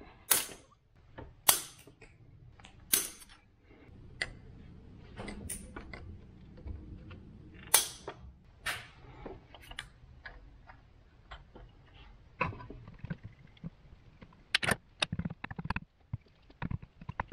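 Sharp metallic snaps and clicks of side cutters and pliers working the excess tail of a hard-steel helicoil thread insert, with hand tools clinking. They come irregularly, a dozen or so, with several in quick succession near the end.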